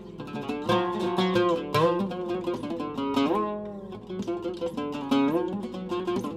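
Syrian-style oud with a Canadian cedar soundboard played solo with a plectrum: a flowing melody of quick plucked notes, several sliding up or down in pitch.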